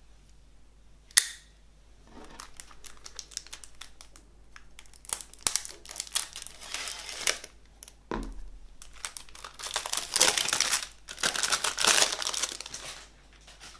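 Cellophane shrink-wrap on a plastic CD jewel case being slit with a knife along the edge, then crinkling loudly as it is peeled off and pulled away. A sharp click comes about a second in and a low knock a little past the middle.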